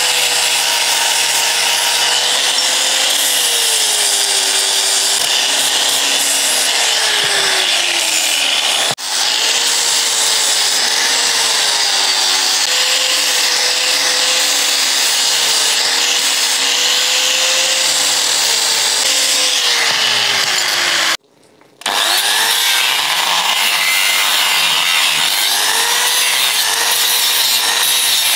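Electric angle grinder running with its disc pressed into a small piece of metal, cutting it; the motor's pitch sags again and again under the load and picks up as the pressure eases. The sound breaks off briefly about nine seconds in and for about half a second around twenty-one seconds in.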